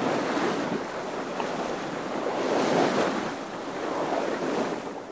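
Waves and wind rushing as a steady noise that swells and eases a couple of times, then fades out near the end.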